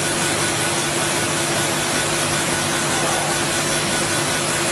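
A 6040 laser engraver running while it engraves acrylic: a steady mechanical whir and hiss with a constant low hum.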